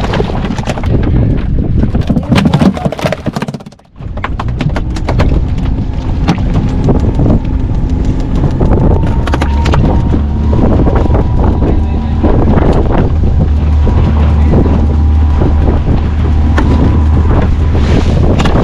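Fishing boat's engine running steadily at sea, heavily buffeted by wind on the microphone. The sound drops out briefly about four seconds in.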